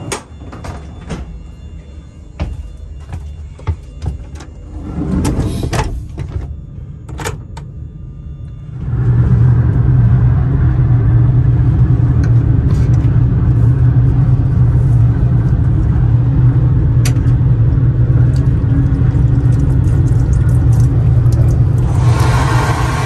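Clicks and a sliding swish of fittings in a TGV toilet cubicle, then a loud, steady mechanical rumble with a deep hum starts abruptly about nine seconds in. Near the end, the basin tap starts running water, a hiss over the rumble.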